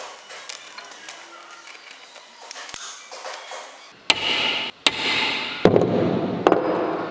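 A hammer striking a centre punch on a metal cylinder held in a vise: a few sharp metallic taps in the second half, marking the centre for drilling. Before that, only faint handling clicks.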